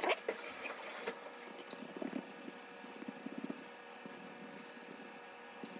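Fine-grit sanding pad rubbing on a wooden pipe bowl: a faint, uneven scratchy hiss, with a few light clicks near the middle.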